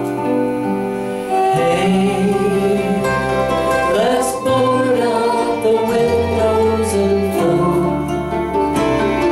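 A small acoustic band playing live: acoustic guitar, mandolin, keyboard and bass, with a woman singing long held notes over a slow bass line.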